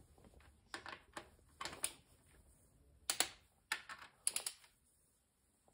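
Ratcheting wrench clicking in short strokes on a V8's connecting-rod bolts as they are tightened: sharp metallic clicks, singly and in quick clusters of a few.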